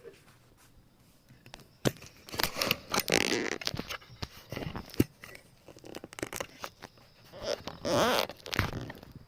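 A person clearing their throat, in two main rounds about two seconds in and about eight seconds in, with a few sharp clicks between.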